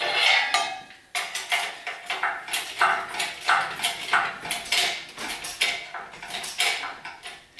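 Shop engine hoist lifting an engine out of a car: a run of sharp metallic clinks and clanks, about two to three a second, from the hoist and its chain as the load is raised.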